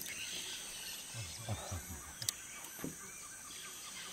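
Rainforest ambience: a steady high-pitched insect drone, with a few faint low pulses about a second in and a single sharp click a little past two seconds.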